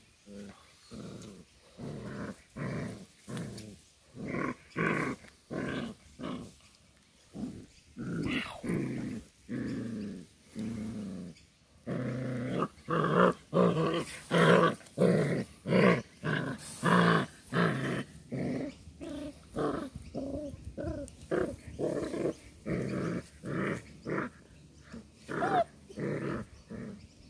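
Seven-week-old Doberman puppies growling as they play-fight: a long run of short growls, about two a second, loudest and most intense in the middle stretch.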